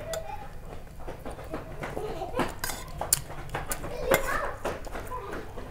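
Steel spoon clinking and scraping against a stainless steel bowl of curry as it scoops, with several sharp clinks, the loudest about three and four seconds in.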